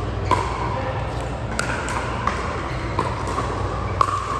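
Sharp, ringing ball impacts, about six at irregular intervals, over the murmur of voices in a large hall.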